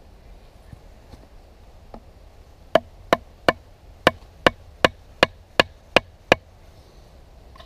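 A wooden baton knocks on the spine of a Delta Whiskey Farnhawk bushcraft knife, driving the blade into a green branch to cut a notch. A few light taps come first, then ten sharp knocks at about three a second.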